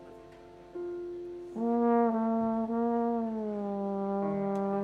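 A trombone plays a long held note that comes in loudly about a second and a half in and slides down in pitch past the middle, over a softer sustained note. More horns join with held notes near the end.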